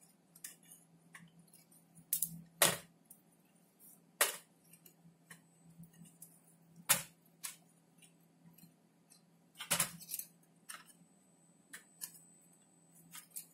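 Soldering iron tip working the solder joints of a circuit board while a component is desoldered and pulled out: irregular light clicks and taps, a few of them louder, over a faint steady low hum.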